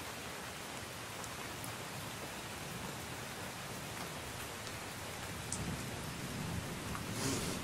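Steady rain, an even hiss with a few faint drops ticking, and a brief louder rush near the end.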